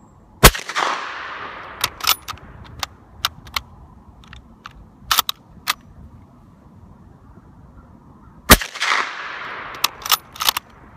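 Two suppressed rifle shots about eight seconds apart from a bolt-action Mosin-Nagant in 7.62×54R fitted with a SilencerCo Saker 762 suppressor. Each shot is a sharp report followed by a rush of noise that fades over a second or so. After each shot come several quick metallic clicks and clacks as the bolt is worked.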